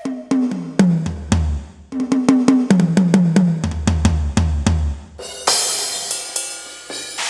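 Sampled drum kit played on an electronic percussion pad: a fast run of tom strokes whose pitch slides down, with bass drum hits under them, then a cymbal crash ringing out from about five seconds in.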